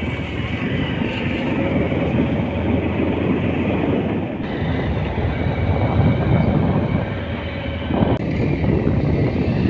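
Steady rush of wind and engine noise from a moving motorcycle, heard from the seat of the bike.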